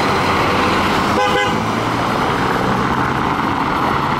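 Scania-engined coach driving off along a cobbled street, its engine running steadily under road noise, with one short vehicle horn toot about a second in.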